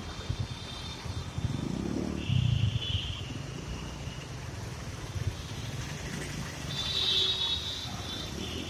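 Busy city street traffic: motorcycles, scooters and autorickshaws running and idling at a junction. An engine grows louder about two seconds in, and two high horn beeps about a second long come at about two and a half and seven seconds in.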